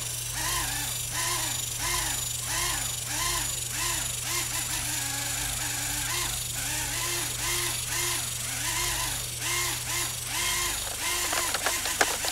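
Radio-controlled helicopter in flight: a droning motor-and-rotor note that swoops up and down in pitch about twice a second, over a steady low hum that stops near the end.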